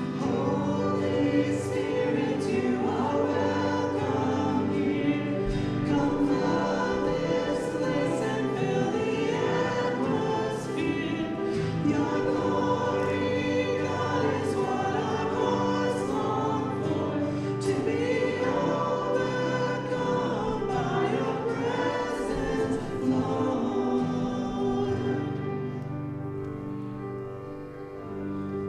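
Group of voices singing a hymn over instrumental accompaniment, growing softer near the end.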